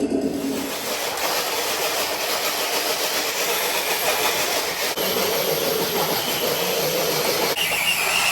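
Electric RC scale truck running under load, a steady motor and gear whine over a hissing scrape, typical of a truck dragging a weighted pull sled across a concrete floor.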